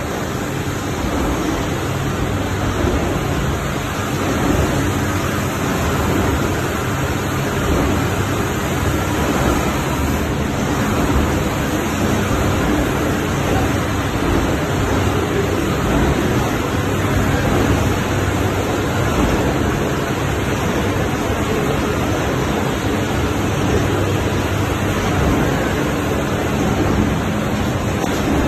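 Aluminum-metallized-film cardboard laminating and coating machine running: a loud, steady mechanical noise with a low hum underneath.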